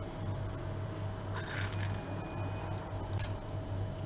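A few faint, brief rustles and ticks from fingers placing chocolate chips onto cream-covered sponge cake, over a steady low hum.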